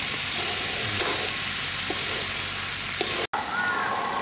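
Boiled gram seeds (black chickpeas) with onion and green chili sizzling in hot oil as they are stir-fried in a wide pan, a spatula turning them with a few faint clicks against the pan. The sound breaks off for an instant about three seconds in.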